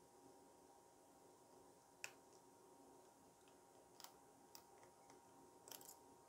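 Near silence with a few faint, sharp clicks of a hook pick working the pins of a Lockwood 530 key-in-knob lock cylinder: single clicks about two and four seconds in, then a short flurry near the end.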